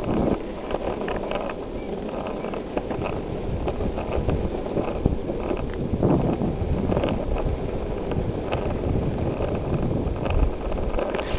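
Longboard on urethane wheels (Zombie Hawgs, 88a) rolling over pavement, a steady rumble with scattered sharp clicks, with wind buffeting the microphone.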